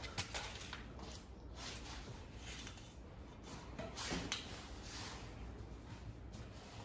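Faint rustling of nylon strap webbing being handled, with a few light clicks and knocks from the strap hardware and dolly frame, the loudest about four seconds in.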